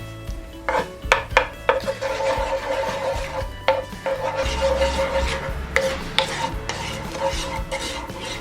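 Kitchen utensil stirring and scraping in a pan, with a few sharp clicks about a second in, over background music.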